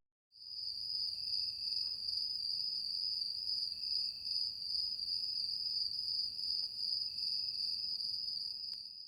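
A steady, high-pitched whining tone with a slightly wavering loudness. It starts abruptly about half a second in and cuts off suddenly at the end.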